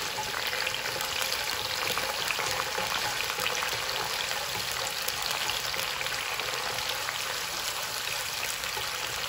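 Sliced garlic, freshly rinsed, frying in a generous amount of hot oil in a wok. It makes a steady sizzle, thick with fine crackling, while it is stirred with long wooden chopsticks.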